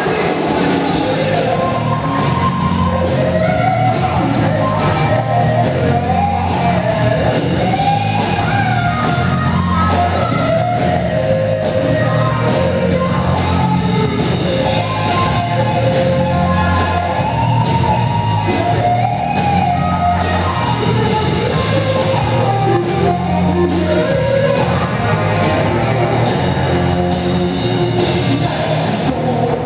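Live rock band playing loudly: distorted electric guitars over a drum kit and bass beat.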